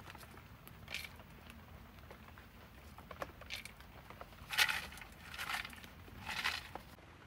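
Small stones rattling into and inside a bamboo tube as a filter layer is loaded: a few faint trickles, then three short, louder rattles about a second apart near the end.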